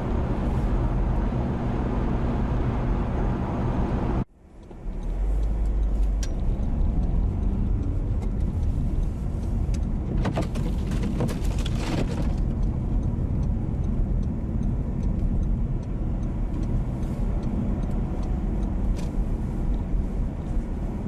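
Car road and engine noise heard from inside the cabin while driving at motorway speed, a steady rumble with a low hum. It cuts out abruptly for a moment about four seconds in, then resumes, with a short run of faint clicks about halfway through.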